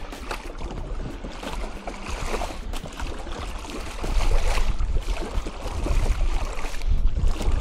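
Water splashing and sloshing around a plastic kayak as it is worked free of the sand it is stuck to in shallow water, with small irregular knocks and scrapes against the hull. A low rumble grows louder about halfway through.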